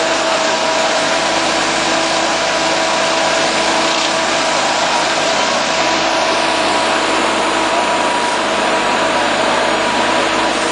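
Fire engine's motor and pump running hard: a steady, loud mechanical drone with a constant whine over a hiss.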